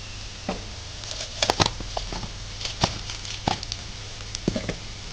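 Onions and spices frying in butter in a wok, with scattered sharp crackles and small clicks over a low steady hum.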